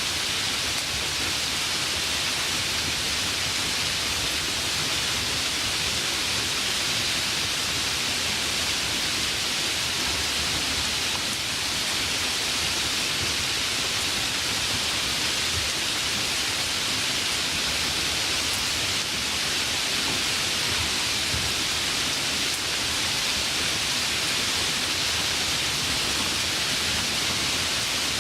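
Steady light rainfall, an even hiss of drops that is strongest in the high range, without thunder.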